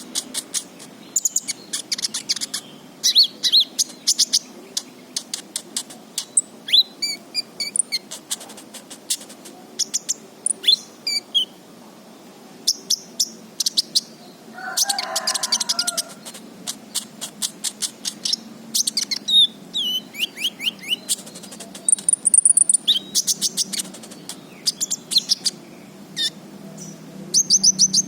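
A sunbird (kolibri ninja) singing in bursts: rapid runs of high, thin chirps and ticking trills with a few short falling notes. A brief lower call sounds about halfway through.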